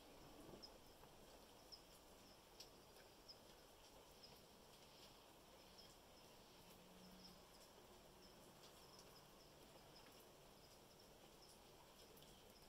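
Near silence: a faint steady hiss of light rain with a few soft ticks. Small high chirps recur roughly once a second.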